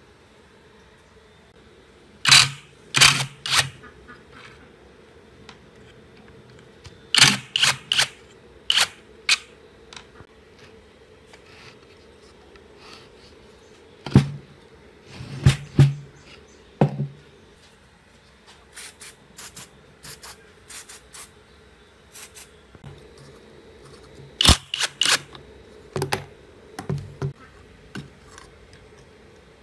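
Clusters of sharp clicks, knocks and scrapes from hand-dismantling an old rusty aerator pump: metal and plastic parts and a screwdriver knocking and prying against the pump housing and the wooden workbench.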